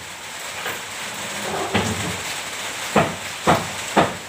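Kitchen knife scraping the enamel off an aluminium fan-motor winding wire to bare it. A rough scraping runs first, then four short, sharp scrapes about half a second apart begin a little under two seconds in.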